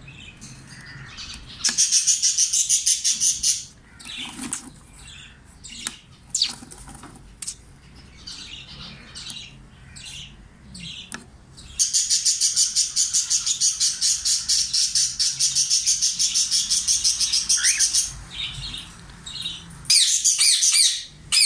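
Pet parrots, cockatiels and budgerigars, calling in an aviary. Short high chirps are broken by long runs of rapid, evenly pulsed chattering: a short burst about two seconds in, a long run from about the middle to near the end, and another burst at the very end.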